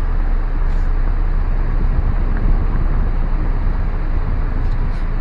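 A car driving along slowly, a steady low rumble of engine and road noise.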